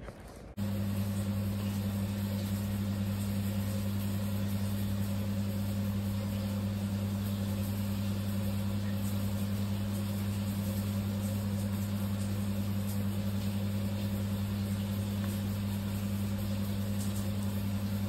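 A steady low machine hum, starting about half a second in and holding an even pitch and level throughout.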